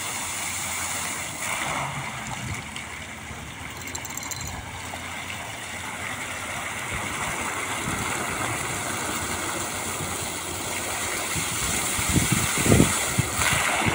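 Fountain running: a ring of arching water jets and a central spout splashing into the basin, a steady rush of falling water. A few low thumps come near the end.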